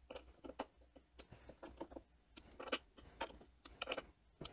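Faint, irregular small clicks and ticks of a small hex screwdriver on the grub screws of a 3D printer's lead-screw belt pulley as they are snugged up a little at a time.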